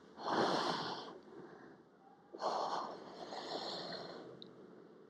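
A woman breathing hard through a clip-on microphone while she holds and then releases a two-leg seated stretch. There are two long breaths: one of about a second, then a longer one of about two seconds.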